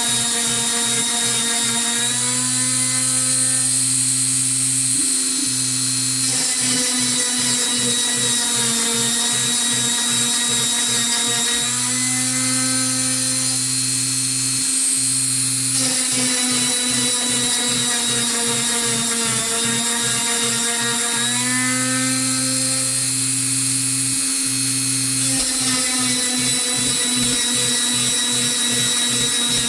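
Homemade V-slot CNC machine cutting MDF: its stepper motors, run by TB6600 drivers, whine in steady tones that jump to a new pitch every few seconds as the axes move, alternating with stretches of rapid low pulsing, over a steady high hiss.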